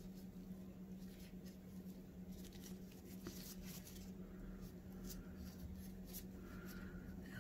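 Faint rustling and light scraping of small items being handled, a little busier about halfway through, over a steady low hum.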